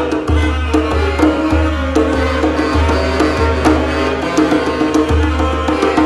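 A small band playing: saxophones holding sustained notes over a bass line that changes note about every half second, with hand percussion tapping throughout.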